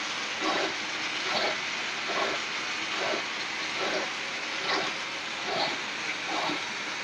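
Hydraulic boring machine running on a cast-iron gearbox housing: a steady hiss with a soft pulse repeating a little more than once a second.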